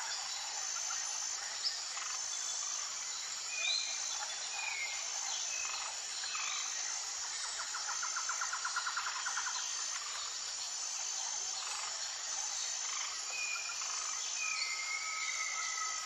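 Forest ambience: birds calling with short whistled glides and a rapid trill, over a steady high insect chirping that repeats at an even beat.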